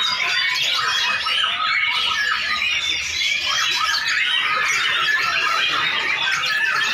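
Several white-rumped shamas (murai batu) singing at once, a dense, unbroken tangle of whistles, trills and chirps.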